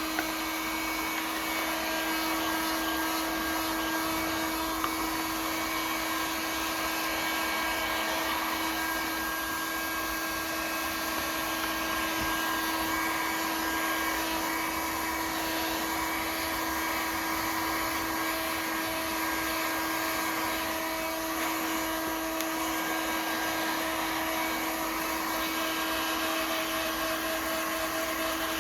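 Electric blower motor running steadily, a constant whine over a rushing hiss, having just spun up to speed.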